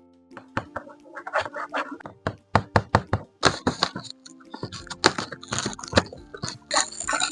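Toy packaging being handled and opened: a run of sharp clicks and taps, then crinkling and rustling twice, once about halfway through and again near the end, over soft background music.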